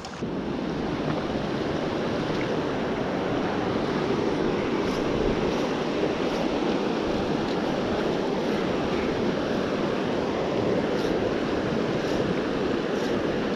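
Fast, shallow river current rushing steadily over rocks, heard close up. It steps up in level just after the start.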